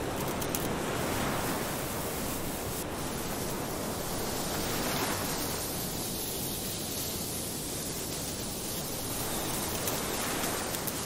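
Steady rushing noise of surf and wind, with no distinct events, turning a little duller about halfway through.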